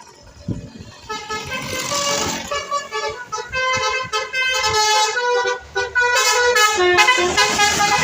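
Bus telolet horn, a multi-tone musical air horn, playing a quick melody of stepped notes, several tones at once. It starts about a second in, with a short break near six seconds.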